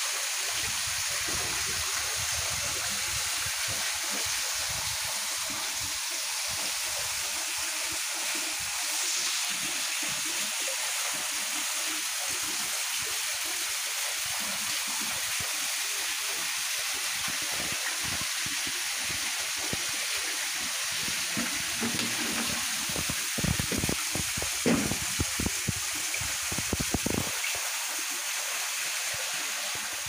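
Small waterfall splashing down a rock face onto the rocks below, a steady rush of falling water. A few short low thumps come in the last third.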